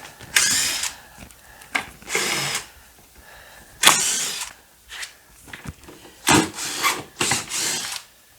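Power drill running in about five short bursts of under a second each, with pauses between them.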